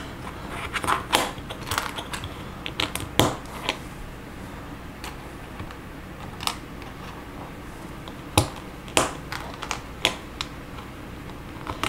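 Plastic Lego bricks clicking and tapping as they are picked from a tabletop and pressed together: irregular sharp clicks, a cluster in the first few seconds, then single clicks a second or two apart.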